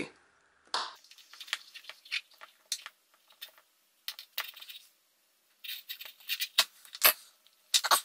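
Wire strippers' cutting jaws biting into and scoring the white outer insulation of a three-conductor power cord: irregular small clicks and crunches, louder and closer together near the end.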